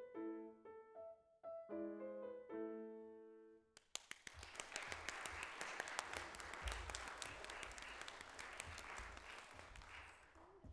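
August Förster grand piano played, the piece ending on a held chord a few seconds in. An audience then applauds for about six seconds, the clapping thinning out near the end.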